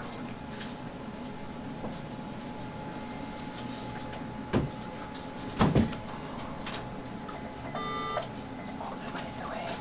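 Neonatal intensive-care bedside equipment: a steady electrical hum under a low room murmur, two sharp knocks near the middle, and a short electronic beep from a bedside device about eight seconds in.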